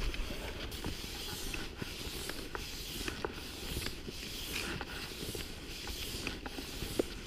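Cross-country skis sliding and scraping over snow in a steady striding rhythm, a stroke a little under every second, with faint clicks from the ski poles, while climbing uphill.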